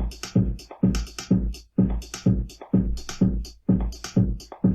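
Electronic drum-kit pattern played back in Ableton Live: a steady four-on-the-floor kick with hi-hats and a snare, looping at an even dance tempo.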